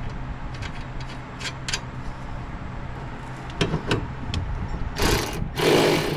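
Hand-tool work on a kei truck's front suspension while its strut rod bushings are fitted: scattered sharp metal clicks and knocks, then two louder scraping rushes about five and six seconds in, over a steady low hum.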